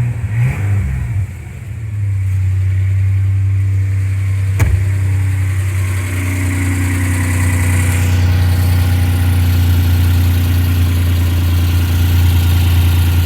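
Suzuki Escudo's H20A 2.0-litre V6 idling steadily while still not fully warmed up, not yet knocking. A single sharp click about four and a half seconds in.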